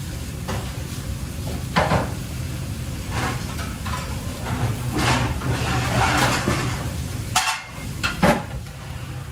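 Kitchen work sounds over a steady low hum: knocks and clatters of cookware or cupboard doors, a sharp one about two seconds in and another near the end, with a stretch of hissing clatter in between.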